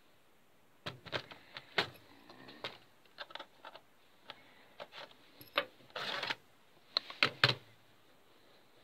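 Plastic and metal clicks and knocks as the optical drive is worked loose and slid out of a Packard Bell EasyNote TJ75 laptop, with a short scrape about six seconds in and a few sharp knocks near the end.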